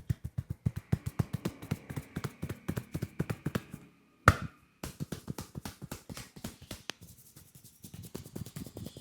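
Rapid rhythmic hand tapping and slapping on a head during an Indian head massage, about seven strokes a second. About four seconds in the tapping stops for a single loud, sharp snap, then resumes more softly and picks up again toward the end.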